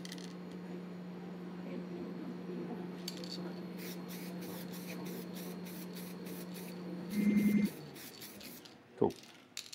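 Aerosol spray can spraying in a quick series of short, light bursts over a steady low hum, with a louder brief sound a little after seven seconds in.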